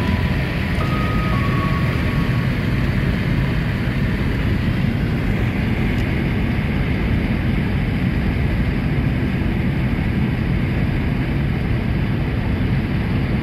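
Steady road and engine noise heard inside a Volkswagen Golf Mk3's cabin while cruising at motorway speed.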